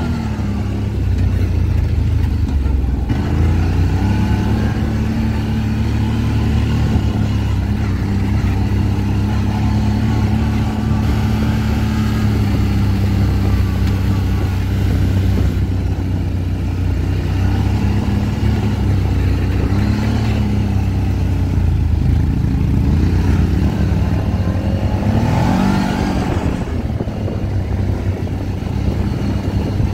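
ATV engine running steadily, with the revs rising briefly at the start and again about 25 seconds in.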